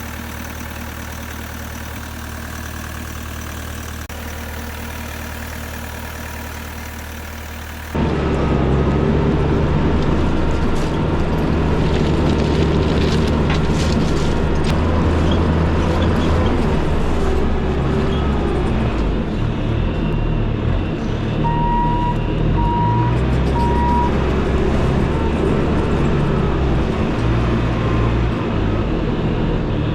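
A vehicle engine running steadily. After a cut about 8 seconds in it is louder and rises and falls with changing load. Three short, even beeps sound about two-thirds of the way through.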